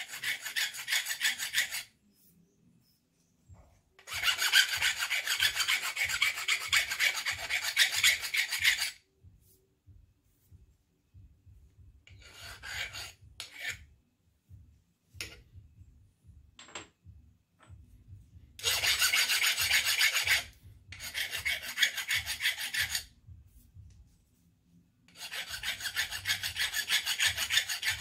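Hand file scraping back and forth over the edges of a freshly milled metal blank, deburring it: rapid rasping strokes in several spells of one to five seconds, with short pauses between.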